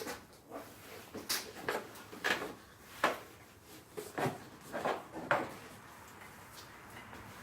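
Catch-can hoses and engine-bay plastics being worked by hand under the fuse box: a string of irregular knocks, clicks and scrapes that stops about five and a half seconds in.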